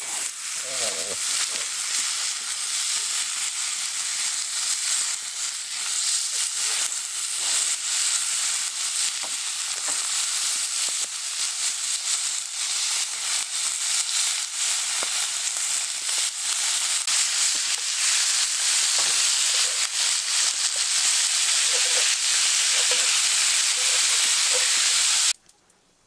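Bacon sizzling in a pan: a loud, steady sizzle with small pops and spits all through, cutting off suddenly near the end.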